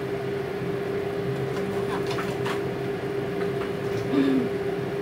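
Steady hum of a running kitchen appliance over the stove, with a few light clicks of a utensil against the pan about two seconds in.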